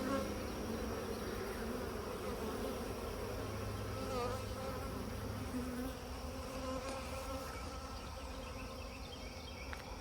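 A swarm of honeybees buzzing steadily, many bees at once.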